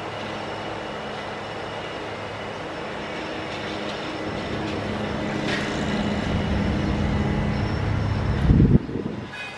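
Diesel locomotive's engine running as the loco moves off slowly, a steady hum that grows louder through the middle. Near the end, a heavy low rumble of wind buffets the microphone.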